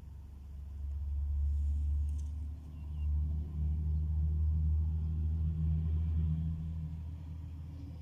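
Low engine rumble of a passing motor vehicle, swelling about a second in and fading near the end.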